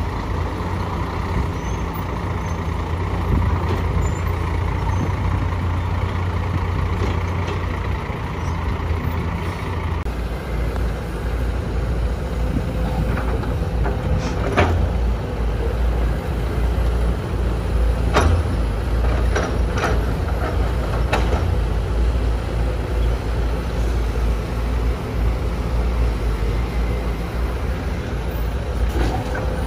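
Diesel engines of Scania dump trucks and a CASE CX210B excavator running steadily. After a change in the engine note partway through, a series of clanks and thuds comes from the excavator bucket loading dirt and rock into a dump truck's bed.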